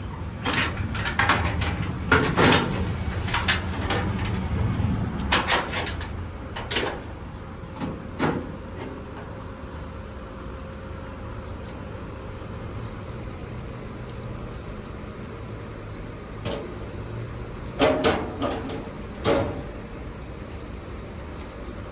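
Metal clanks and knocks from parts being worked loose and removed from an old pickup's steel tailgate, coming in quick clusters near the start and again near the end, with a steady low hum between them.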